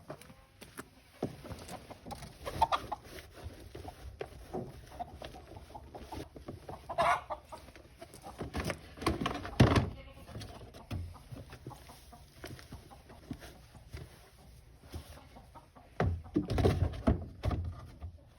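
Chickens clucking, among scattered knocks and rustling.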